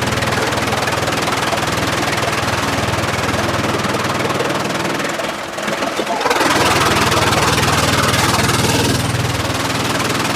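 Sawmill machinery running with a steady engine hum. It dips briefly about five seconds in, then a louder rush of noise comes in from about six to nine seconds in.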